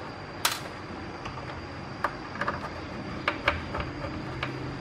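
Scattered sharp clicks and light knocks of plastic parts and a circuit board being handled and pressed into an induction cooktop's plastic frame, with one louder click about half a second in. A low hum comes in near the end.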